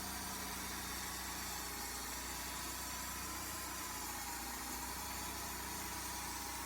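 A machine's engine running steadily at constant speed, an even low hum with a faint steady whine above it.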